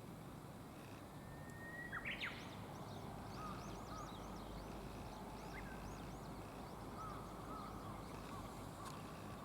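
A green pheasant gives its loud, harsh two-note crow about two seconds in. Smaller songbirds chirp and whistle over a steady outdoor background.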